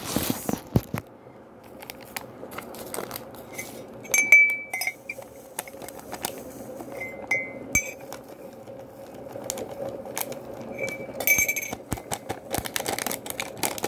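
Ceramic coffee mug and tableware clinking on a table: scattered knocks and a few short, ringing clinks spread through the seconds.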